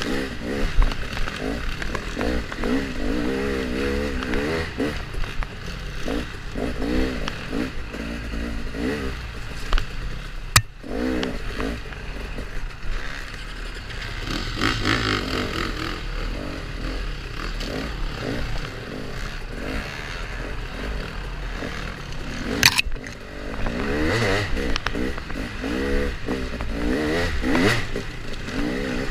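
Dirt bike engine revving up and down again and again while ridden over rough trail, with the bike rattling. There are two sharp knocks, about ten seconds in and again near twenty-three seconds.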